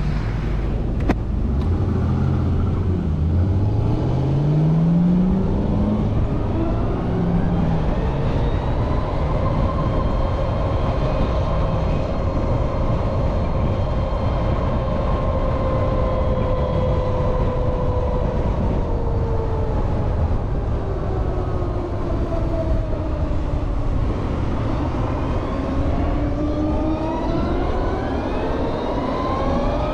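LiveWire One electric motorcycle's motor whining as it pulls away, the whine rising in pitch with speed, holding steady while cruising, falling as the bike slows about two-thirds of the way through, then rising again as it accelerates near the end. A steady low rush of road and wind noise runs underneath.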